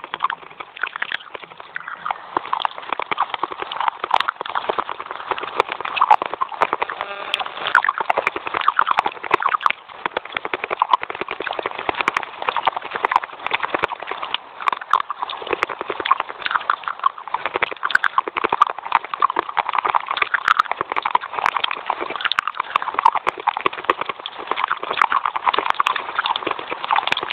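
Close-miked chewing of dry white clay sticks: a fast, continuous run of crisp crunches.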